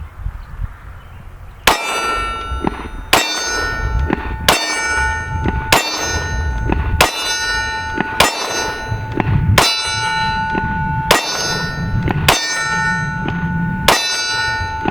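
Ten slow, evenly paced shots from a Glock 20 pistol in 10mm, about one every second and a half. Each shot is followed by the long ringing clang of a steel target being hit.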